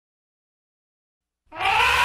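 Silence, then about one and a half seconds in an elephant trumpet call starts loud and abrupt, its pitch rising and then falling, used as the voice of an animated woolly mammoth.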